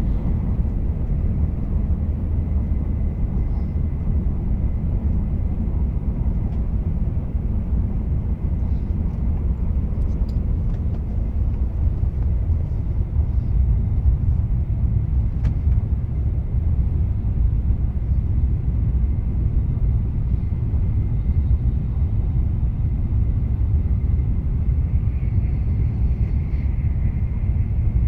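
Shinkansen bullet train running, heard from on board: a steady low rumble with a faint high whine that grows a little louder near the end.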